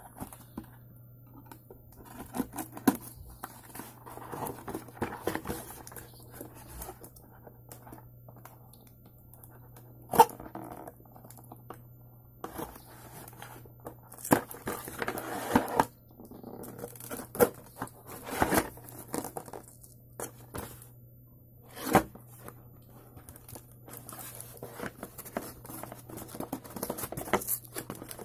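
Cardboard parcel box being opened: packing tape cut with a folding knife and ripped away, and the cardboard flaps torn and crinkling, in irregular bursts. A few sharp snaps stand out.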